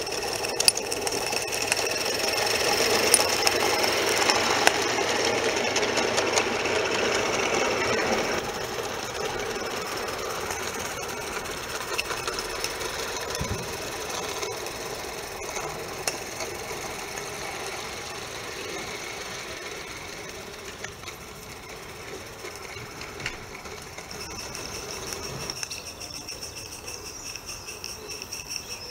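Accucraft live steam tram engine running with its train: a fast, steady mechanical beat with a few sharp clicks, loudest over the first eight seconds as it passes close, then fading and growing a little louder again near the end as it approaches.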